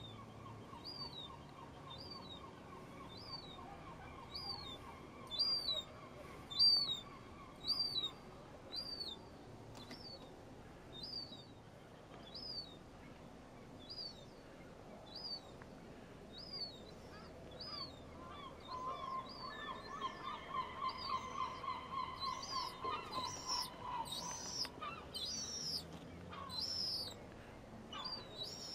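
Juvenile herring gull begging for food: a long series of thin, high-pitched calls, each rising and falling, about one every 0.7 s and growing louder near the end. A lower, rapid trilling runs beside it early on and again for a few seconds in the second half.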